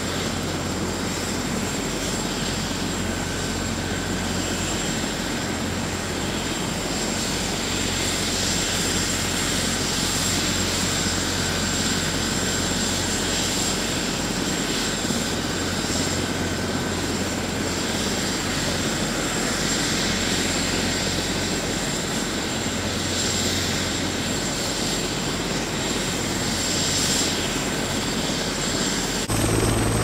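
Fire-department rescue helicopter idling on the ground with its rotor turning: a steady turbine whine over rotor and engine noise. Shortly before the end it turns suddenly deeper and louder.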